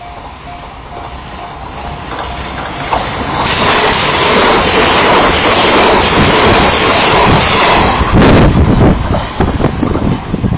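Train passing through a level crossing. The crossing bell dings at first. Wheel and rail noise builds and becomes a loud rush about three and a half seconds in. The last few seconds are gusty, uneven rumbling and rattling as the cars go by.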